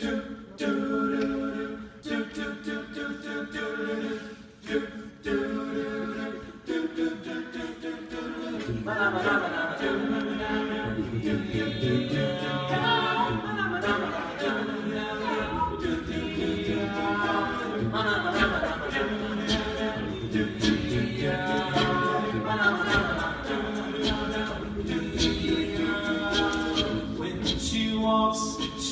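All-male a cappella group singing in close harmony without instruments: sustained chords at first, then about eight seconds in a low bass line and fuller, busier backing voices come in.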